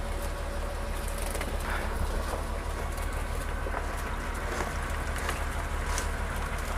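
Fishing boat's motor running steadily with a low drone, with a few faint knocks and clicks over it.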